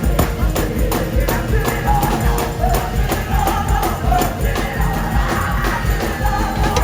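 Live gospel choir singing with band accompaniment: a steady driving beat in the bass and drums, with tambourine-like strokes.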